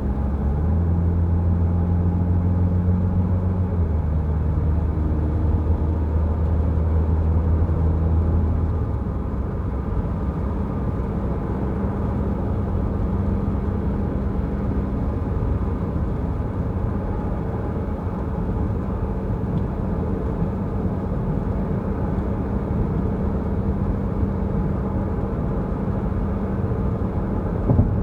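A car driving along the road. For about the first nine seconds there is a steady engine drone, and after that an even rumble of road and tyre noise. A brief thump comes near the end.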